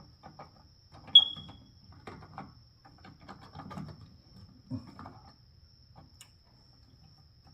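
Smoke detector giving a single short, high chirp about a second in: the warning beep of a detector with its battery missing. Scattered clicks and rustling of handling around it.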